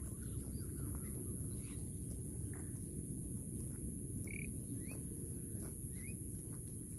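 Small birds chirping a few short, rising notes in the second half, over a steady low rumbling noise and a constant high hiss.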